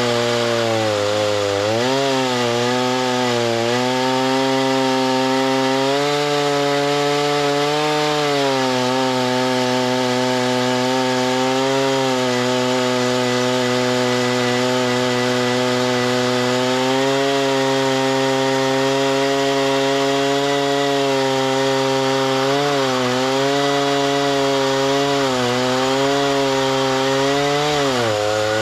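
Chainsaw running steadily under load while sawing a log into lumber. Its pitch dips briefly several times as the engine bogs in the cut, then recovers.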